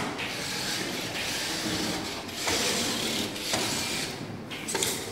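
Small hobby robot's geared drive motors whirring as it runs along the track, the sound shifting a few times as it changes speed or turns.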